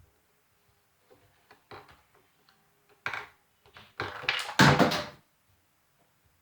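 Objects being handled and knocked about on a tabletop while someone gropes for something: a soft thump, scattered small clicks and taps, then a louder burst of knocking and rustling about four seconds in.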